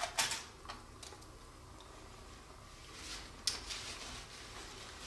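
A few light clicks and knocks from hands handling objects: a short cluster just after the start, then a sharper click about three and a half seconds in.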